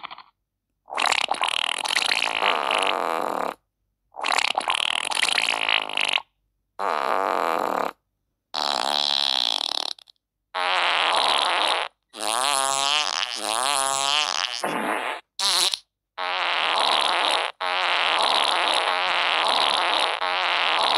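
A string of long, drawn-out fart sounds, about nine in a row, each lasting one to three seconds with clean silent gaps between them. Several waver up and down in pitch, and one near the three-quarter mark is very short.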